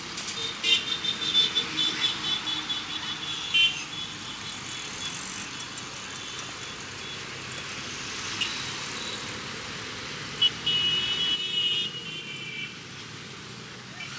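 Steady street traffic noise with vehicles and motorbikes running, broken by bursts of short, high-pitched horn toots during the first few seconds and again about ten to twelve seconds in.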